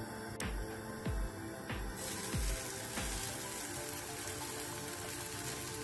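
Buttered bread sizzling as a cheese sandwich is laid butter-side down in a hot non-stick frying pan; the sizzle starts suddenly about two seconds in and stays steady. Background music with a steady beat plays under it and its beat drops out about halfway through.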